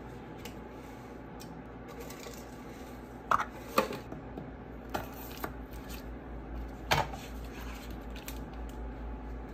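A few sharp clinks and knocks of kitchen handling: a spice jar of bay leaves being handled over a metal cooking pot, the loudest two close together about a third of the way in and another a little after two-thirds, over a low steady hum.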